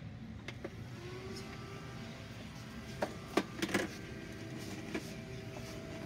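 Small robot vacuum cleaner switched on: its motor starts about a second in with a steady whine and keeps running. A few sharp knocks come near the middle as it is handled and set down on the floor.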